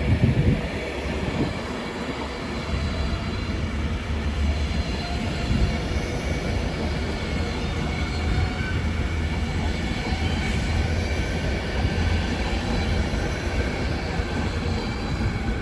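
Train running along the track: a steady rumble of wheels on rails.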